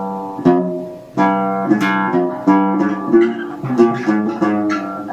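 A modified cümbüş fitted with nylon strings and set up for Arabic tuning, played as a melodic phrase of single plucked notes that ring on into one another.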